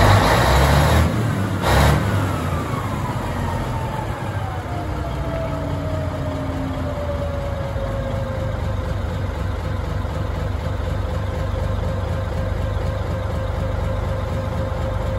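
Caterpillar D9L bulldozer's diesel engine running. Two short bursts of hiss come in the first two seconds, and a whine falls steadily over several seconds before settling into a steady tone as the engine comes back down to idle.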